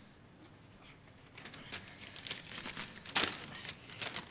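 A sheet of paper holding a written speech being unfolded and handled, rustling and crinkling. A string of irregular crackles starts about a second and a half in and is loudest around three seconds.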